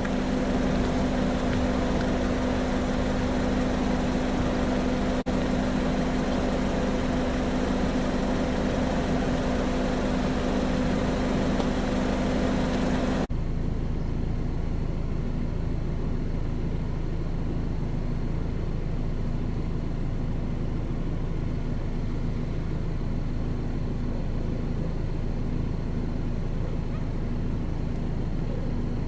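An engine running steadily, a constant hum with a low drone. About 13 seconds in the sound cuts abruptly to a lower, duller engine hum.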